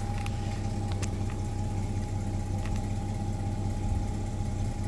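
Old Chevy pickup truck's engine idling steadily.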